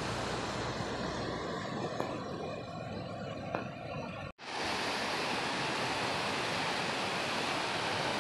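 Water rushing steadily through a breached earthen dam. The sound drops out for an instant about four seconds in, then comes back as a fuller, louder rush of floodwater.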